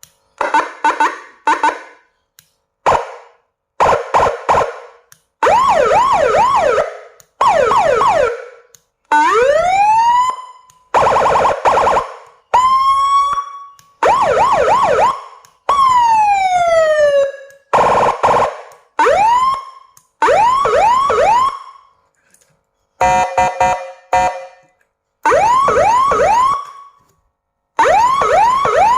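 A 12-tone 50-watt electronic police-escort siren played in short bursts, switching from one tone to the next with brief pauses between. It runs through quick rising chirps and yelps, slow rising and falling wails, and near the end a stuttering steady horn tone.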